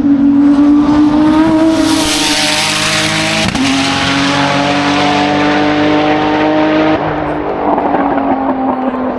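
Race car accelerating hard up a hillclimb course past the listener, its engine note loudest a couple of seconds in. It changes gear about three and a half seconds in and again around seven seconds, then begins to fade.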